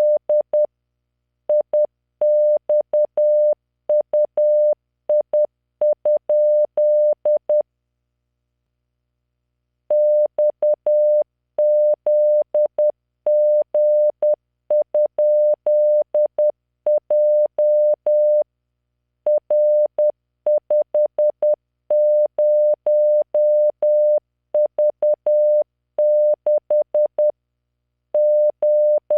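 Morse code practice tone from LearningMorse software: a steady 600 Hz tone keyed on and off in dots and dashes at 10 words per minute, spelling random five-character groups of letters, figures and punctuation. There is a pause of about two seconds roughly a third of the way in.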